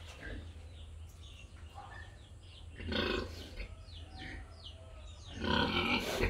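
Pig grunting in a pen, two grunts about three seconds apart, over a low steady hum, with faint short high chirps in between.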